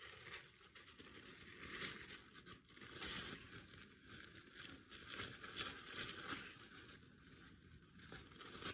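Tissue paper crinkling and rustling as it is handled, a faint, uneven run of small crackles.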